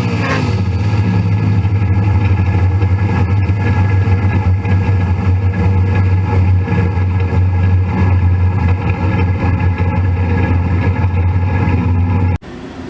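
Car engine running steadily at a low, constant speed, loud and even, then cut off abruptly near the end.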